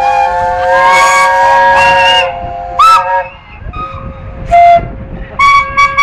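Steam whistles on a line of traction engines and steam rollers blowing together, making a chord of several pitches with individual blasts cutting in and out. The chorus thins a little past halfway, then a short loud blast sounds and more whistles join near the end.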